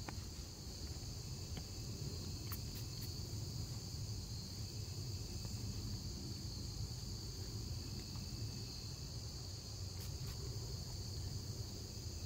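Steady, high-pitched chorus of insects, with a low rumble underneath and a few faint clicks.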